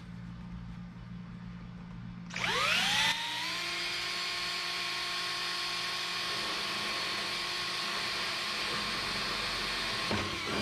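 Electric drill spinning up with a quick rising whine about two seconds in, then running at a steady pitch for about seven seconds and stopping near the end: pre-drilling a hole in the metal booster housing.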